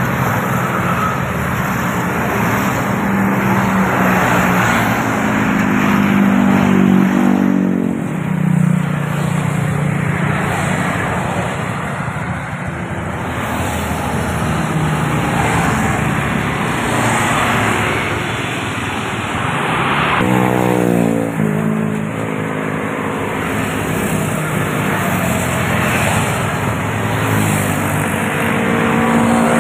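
Busy highway traffic: large intercity coach buses and motorcycles passing close by, a continuous mix of engine noise and tyre roar. Several times a vehicle's engine note slides in pitch as it goes by.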